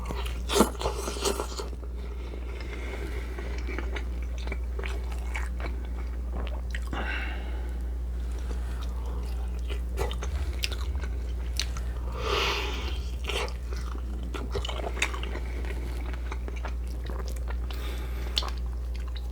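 A person chewing and biting food close to the microphone, with scattered short crunches and mouth clicks over a steady low hum.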